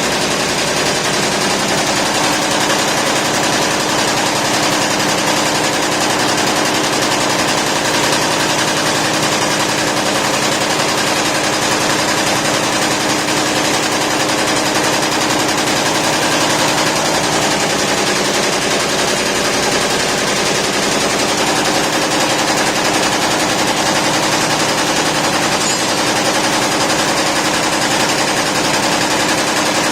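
YBD164 64-needle quilting embroidery machine running, its needles stitching in a rapid, steady mechanical clatter.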